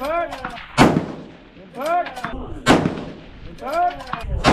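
Precision rifle fired three times from a barricade, about two seconds apart, each shot a sharp loud crack. Between the shots come short tones that rise and then fall.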